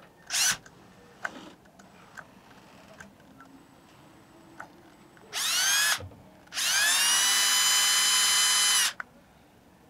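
AEG cordless drill with a thin bit drilling a small pilot hole in a circuit-breaker part, in short runs: a brief pulse near the start, a half-second burst about five seconds in, then a run of about two seconds. Each run spins up quickly to a steady high whine and stops abruptly.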